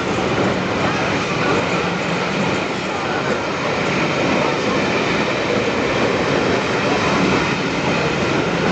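Passenger coaches of a departing train rolling past close by, their wheels running over the rails in a steady, loud rumble.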